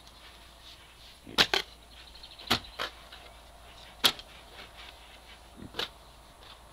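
Steel spade being driven into earth while digging a post hole: a series of sharp chops and scrapes into the soil, about seven in all, with the loudest a little over a second in and about four seconds in.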